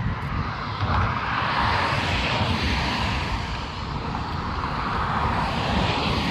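Wind buffeting the microphone, over a steady rushing noise that swells about a second in and again near the end.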